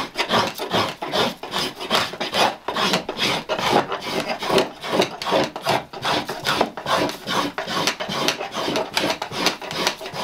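Hand plane shaving down a wooden ash hurley in quick repeated scraping strokes, about two or three a second.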